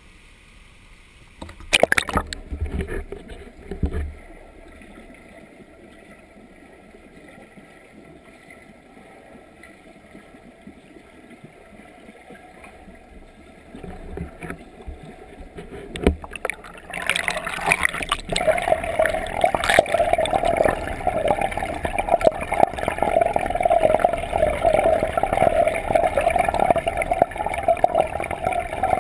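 Muffled underwater pool noise heard through an action camera's waterproof housing: a few sharp knocks in the first few seconds, then, from about two-thirds of the way in, a louder steady rushing, gurgling water noise.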